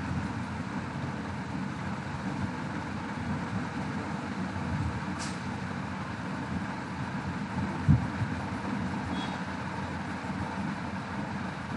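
Steady low rumbling background noise, with one short thump about eight seconds in.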